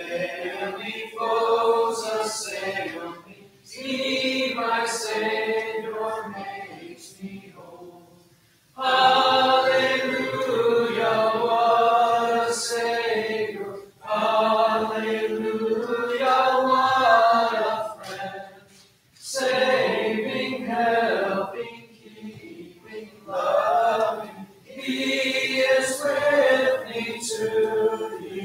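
Congregation singing a hymn together, line by line, with short pauses between the sung phrases.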